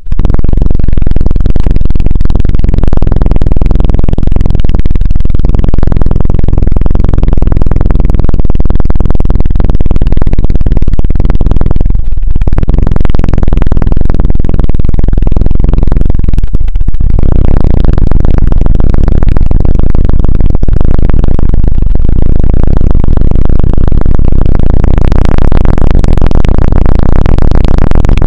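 Fingers rapidly tapping and rubbing directly on a microphone, giving a loud, dense, low thudding: the ASMR 'helicopter' (突突) trigger. It breaks off briefly about 12 and 17 seconds in.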